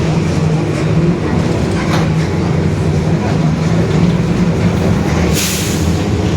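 Mercedes-Benz OF-1721 bus on the move, its rear differential growling very loudly as a steady low drone over the running noise. A short hiss comes about five seconds in.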